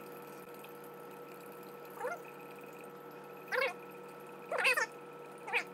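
A cat meowing: four short meows with sliding pitch, about a second apart, starting about two seconds in.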